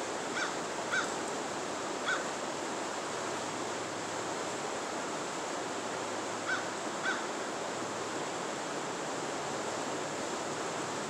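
Steady rush of a fast-flowing river running over shallow rapids. A bird gives short calls: three in the first two seconds and two more about six and a half seconds in.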